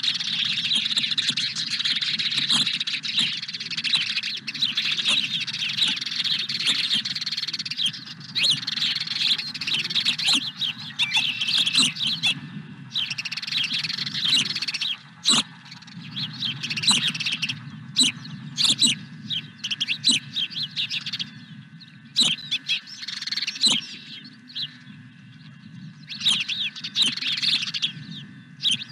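Songbirds singing and chirping, a dense chorus for the first several seconds that thins to separate short chirping phrases about once a second.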